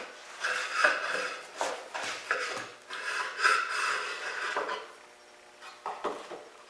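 Clamps being handled and tightened on a glued-up wooden panel: clinking, scraping and rubbing of metal against wood, with a few sharp clicks. It dies down about two-thirds of the way through, leaving only a couple of faint knocks.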